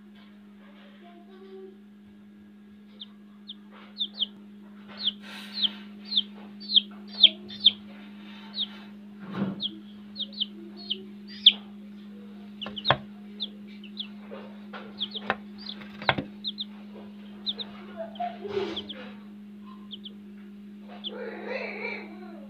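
Kadaknath chicks peeping: short, high cheeps that slide downward, coming irregularly and at times several a second. Underneath runs a steady low hum, with a few sharp knocks.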